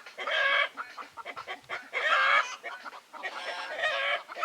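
Chickens clucking, with three drawn-out calls, at the start, about two seconds in and near the end.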